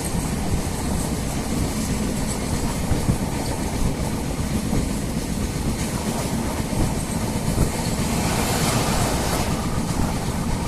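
Passenger train running, heard from inside a coach: a steady noise of wheels on the track and the car rattling, with a louder hiss about eight seconds in.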